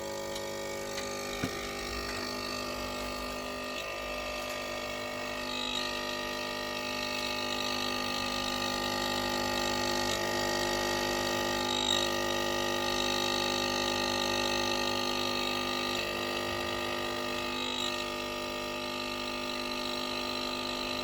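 Nespresso coffee machine's pump buzzing steadily as it brews a coffee, running off an inverter on a lithium car battery. The buzz grows louder about six seconds in and eases back a little near eighteen seconds.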